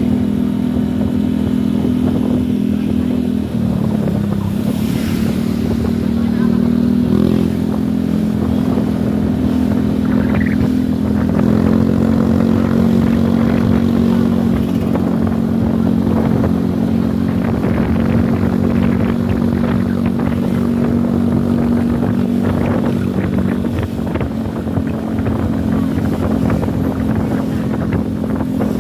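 A vehicle engine running steadily under way, its note changing pitch in a few steps, with rushing wind and road noise over it.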